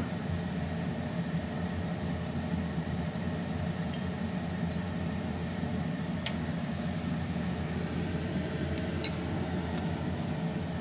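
Steady low kitchen hum with three faint, light clinks spread through it, like a utensil touching a cup or bowl.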